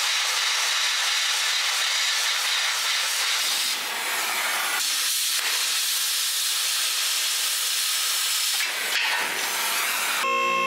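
Cutting torch hissing steadily as it cuts through the truck's frame crossmembers, with a few brief breaks as the cut stops and restarts.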